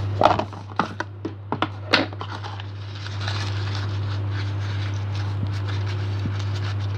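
Several light clicks and knocks of handling over a steady low hum; about three seconds in, a steady hiss joins the hum.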